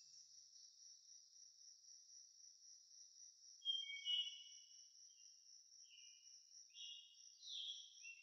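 Faint steady high insect trill, with short high chirps coming in from about halfway through, the loudest a pair of chirps a little before the middle.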